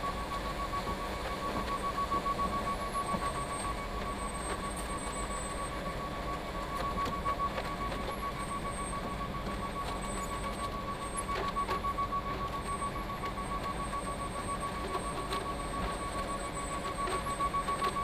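Concrete mixer truck's diesel engine running low, heard from inside the cab, with a steady high-pitched tone sounding over it throughout.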